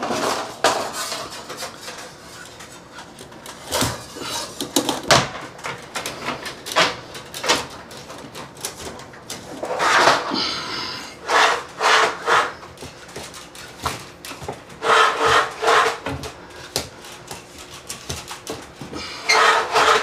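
Thermostat wire being hauled by hand off its reel and through a hole cut in drywall and foam: scraping and rubbing in bursts of a second or so, with scattered sharp knocks and clicks.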